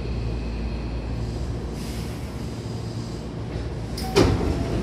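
Hankyu train car's steady low hum, a brief hiss of air about two seconds in, then a sharp clunk with a burst of air about four seconds in: the pneumatic door engine releasing as the car's sliding doors start to open at the station stop.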